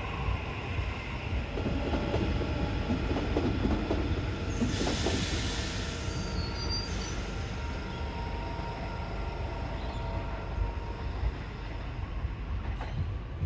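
Sydney double-deck electric trains running through a multi-track yard: a steady low rumble of wheels on rail, with thin high wheel squeals coming and going. A hiss rises for a couple of seconds about five seconds in.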